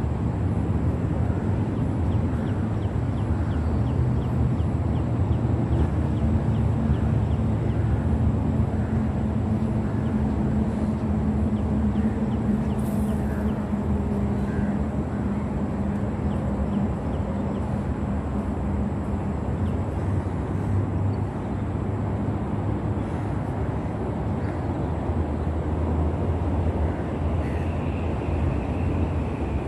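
Steady low rumble of road traffic, with one engine hum standing out over it for a stretch in the middle.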